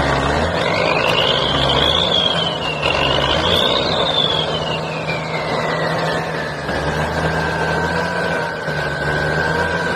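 Road vehicle running at highway speed: a steady low engine drone with a high whine that rises and falls twice over the first four seconds, then holds a steadier, lower pitch.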